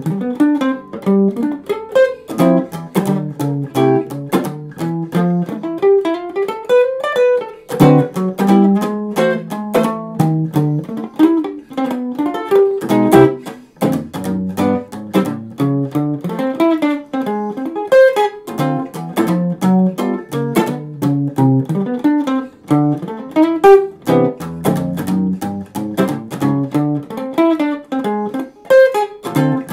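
Ibanez GB100 hollow-body archtop jazz guitar played through a Yamaha F50 amplifier: a continuous stream of quickly picked single-note lines with chords mixed in.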